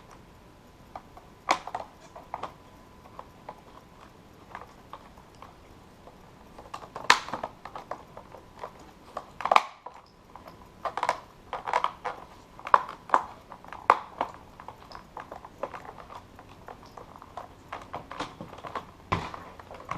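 Irregular clicks and taps of a plastic keyboard case and parts being handled and fitted together, some louder knocks among lighter ticks.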